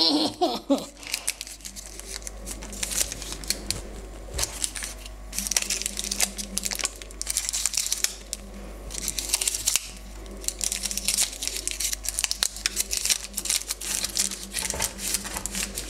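Baking paper crinkling and rustling in the hands as a paper-wrapped roll is twisted, tied with a thin cord and rolled on the countertop, in many short irregular rustles.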